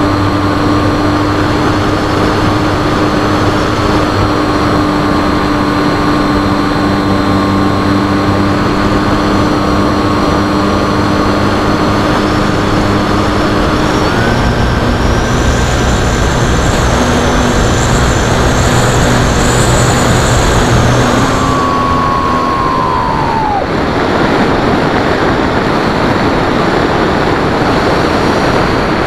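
Wind rushing over an FX-79 flying wing's onboard camera, with the whine of its electric motor and pusher propeller. The pitch steps up about halfway through. Near the end the motor winds down in a falling whine and goes quiet, leaving only the wind as the plane glides.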